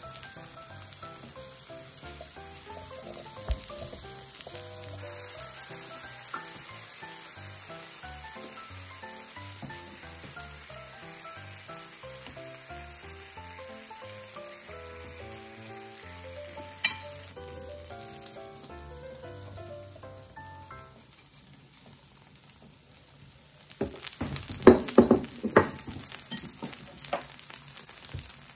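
Okonomiyaki sizzling steadily on a hot griddle plate. Near the end comes a burst of sharp knocks and scraping, the loudest sound here.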